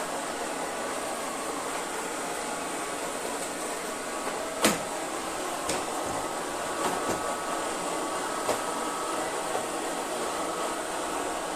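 Kitfort KT-503 robot vacuum cleaner running with a steady whir, with one sharp knock about five seconds in and a few fainter knocks after it.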